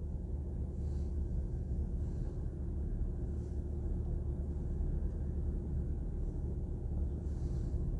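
Steady low background rumble with a faint constant hum and no speech.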